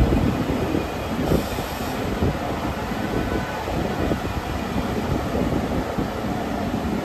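Staten Island Railway R44 subway car standing at the platform, its on-board equipment and air-conditioning running as a steady low hum.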